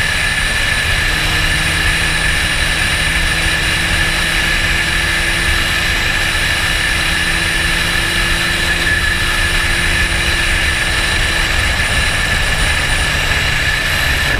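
Motorcycle cruising at steady speed, with wind rushing over the on-board camera's microphone and the engine's drone holding an even pitch throughout.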